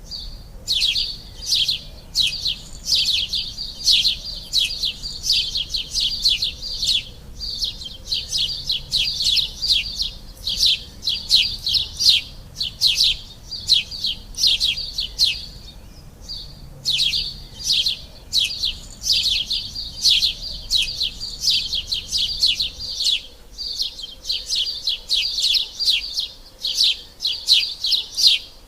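Sparrows chirping in a rapid, continuous run of short high chirps, several a second, with a brief pause about halfway through.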